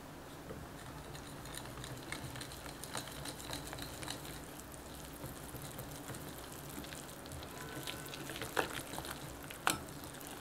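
Wire whisk stirring flour into yeast water in a glass bowl: a soft, wet, scraping stir with many small quick clicks, and two sharper clicks near the end.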